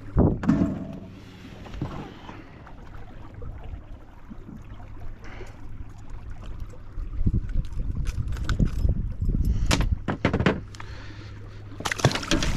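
Knocks and handling noise on a small fishing boat, with water sounds and a low rumbling noise that grows louder about halfway through, over a steady low hum.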